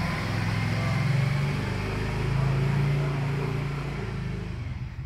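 Hot air rework station gun blowing onto a phone circuit board: a steady rush of air over a low hum.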